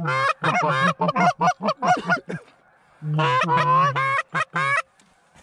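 Goose honking and clucking in fast, loud runs: a quick string of calls, a short break, then another burst that stops about half a second before the end.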